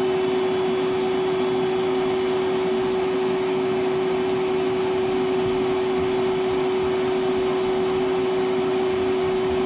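Milwaukee M12 1.6-gallon cordless wet/dry vacuum running steadily on high, a constant motor whine with a single hum-like tone over rushing air. Still at full suction late in a battery runtime test, with little sign of slowing.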